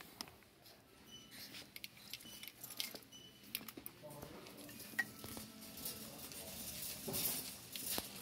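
Light clicking and clatter from a wire shopping cart being pushed, with scattered sharp clicks over faint store background noise.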